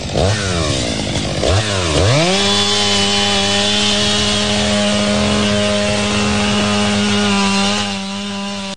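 Gas chainsaw revved sharply a few times, then held at a steady high full-throttle pitch, cutting into a tree trunk, easing off slightly near the end.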